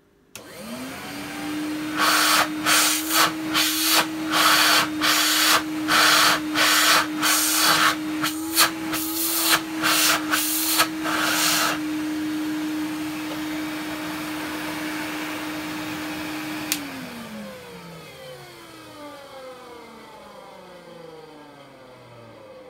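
Numatic NV250 cylinder vacuum cleaner switched on, its motor spinning up to a steady whine. For about ten seconds a rapid series of loud air rushes, roughly two a second, cuts across it. Near the end it clicks off and the motor winds down with a falling whine. The owner takes its roughness for dry motor bearings.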